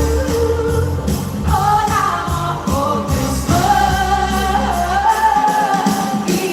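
Live dance-pop music with a female lead vocal holding long, sliding notes over a bass line and beat; the bass drops out about five seconds in.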